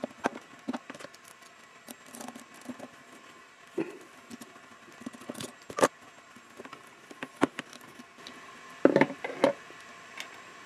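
Lock ring tool and wrench working a bicycle cassette's notched lock ring loose, with scattered clicks and metallic taps of the tool and steel cogs being handled. A louder cluster of knocks comes near the end.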